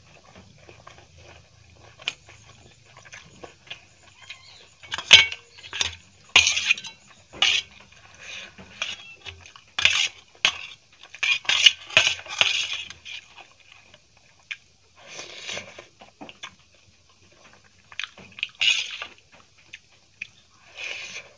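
Metal spoon and fork scraping and clinking against a stainless steel plate while gathering noodles, in a string of short sharp strokes, busiest in the middle.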